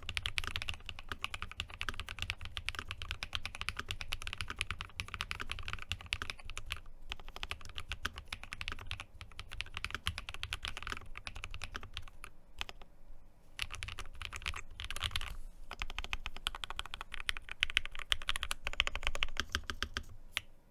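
Typing on an Akko SPR67 spring-mounted mechanical keyboard (230 g mount springs) with Akko CS Snow Gray switches, their springs and stems freshly lubed, and Akko Carolina Blue keycaps: a fast, steady run of keystrokes with a few short pauses.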